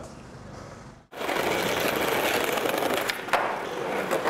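Skateboard wheels rolling over rough pavement, a loud, steady rolling noise that starts abruptly about a second in after a brief dropout, with a sharp clack about three seconds in.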